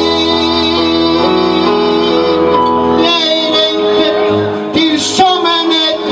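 A live song: a man singing long held notes into a microphone, accompanied by an acoustic guitar and band. There is a brief hiss about five seconds in.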